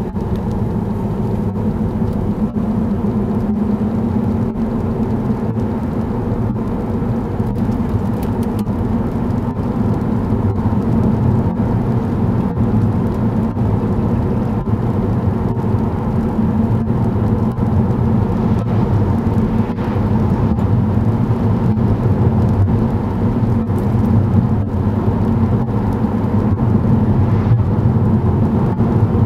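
Cabin noise of a VW Passat B7 driving steadily at speed: constant low rumble of engine and tyres on the road heard from inside the car.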